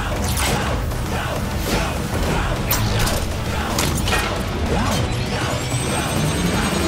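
Cartoon mechanical sound effects: clicks, clanks and whooshes as a rescue vehicle unfolds into a helicopter, its rotor folding out, over upbeat music. About five seconds in, a whine rises and then holds at a high pitch as it powers up.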